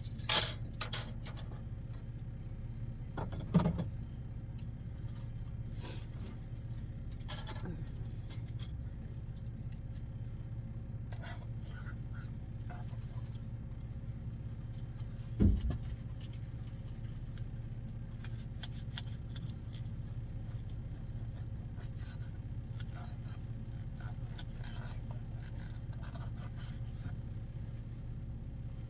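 Scattered clicks and clatter of objects being handled, with three louder knocks (one near the start, one a few seconds in, one about halfway), over a steady low hum.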